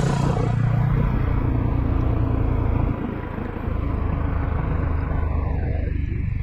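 Motorcycle engine running at road speed with wind rush, heard from the rider's seat. The engine note eases briefly about three seconds in, then picks up again.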